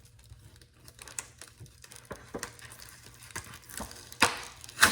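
Handling and unwrapping a wrapped bundle of comic books: rustling, crinkling wrapping and light knocks, with two sharper, louder sounds near the end.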